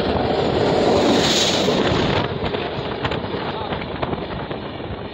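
An oncoming passenger train passing close by on the next track, heard from an open door of a moving train: a loud rush of noise and wind as the electric locomotive goes by in the first two seconds, then the rapid clatter of its coaches' wheels streaming past, with wind buffeting the microphone.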